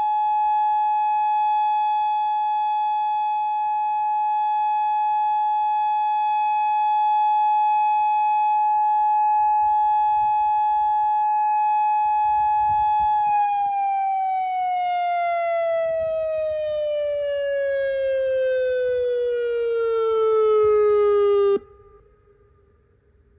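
Modulator 6024 electronic outdoor warning siren sounding a steady tone, which about 13 seconds in glides steadily down in pitch as a simulated wind-down, then cuts off abruptly, leaving a faint echo. This is the end of the siren test tone.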